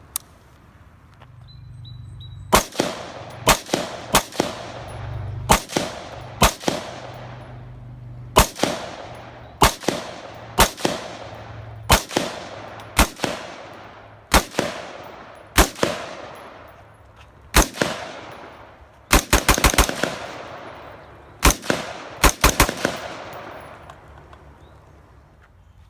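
AR-15 carbine (Palmetto State Armory Freedom M4) firing semi-automatic: single shots and pairs every second or so, then a quick string of about seven shots and a short burst of three or four near the end. Each shot is followed by a short echoing tail.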